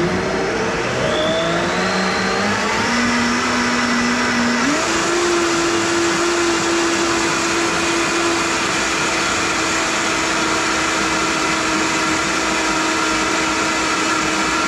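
Vitamix blender motor pureeing potato leek soup: started on low, its whine rises as the speed is turned up over the first five seconds, jumps higher, then runs steadily at high speed.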